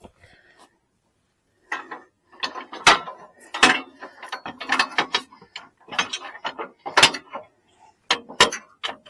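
Steel parts of a Dearborn tractor jack knocking and rattling as it is handled and fitted to a tractor's lift arms: a quick series of sharp metal knocks starting about two seconds in.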